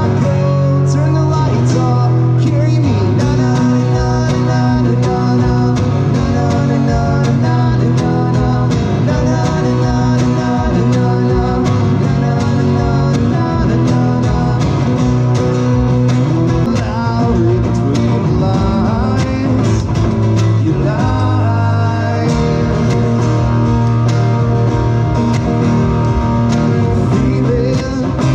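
A live band playing: a strummed acoustic guitar and an electric guitar, amplified, running steadily without a break.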